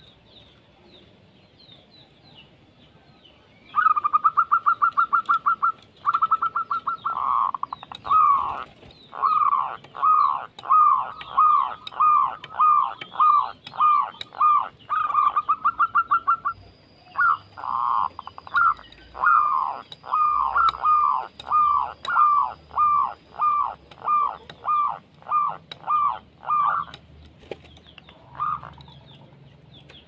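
Zebra dove singing, starting about four seconds in: fast trilled runs of coos, then a long series of short, falling coo notes, about one and a half a second, thinning to a few scattered notes near the end. Fainter chirps of other birds sound behind it.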